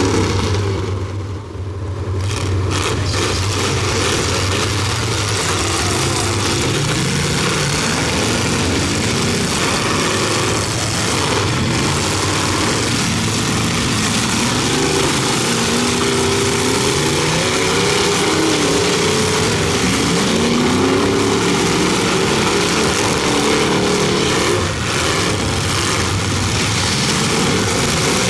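Several big demolition derby cars' engines running and revving together. Their pitches overlap, rising and falling as the cars accelerate and back off.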